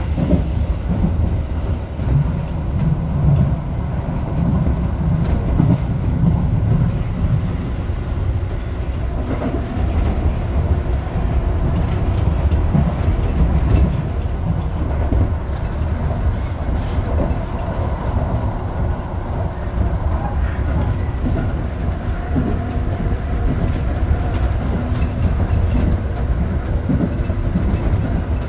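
Tobu 8000-series electric train running at speed between stations, heard from inside the leading car: a steady rumble of wheels on rail with the clack of rail joints, under a faint motor hum.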